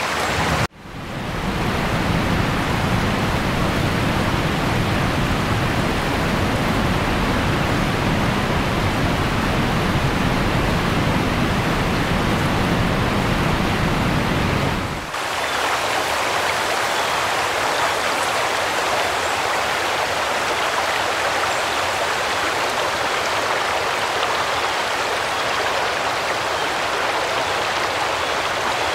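Steady rushing noise of heavy rain and flowing floodwater. About halfway through the deep rumble under the hiss drops away abruptly, leaving a lighter, hissier wash of water.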